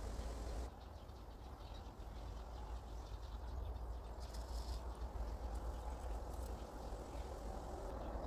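Faint outdoor background: a steady low rumble under an even quiet hiss, with a few small clicks.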